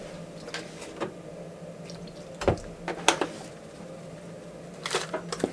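Light handling sounds at a stainless pot of mashed potatoes, a few short knocks with a sharper one about two and a half seconds in and a cluster near the end, over a faint steady hum.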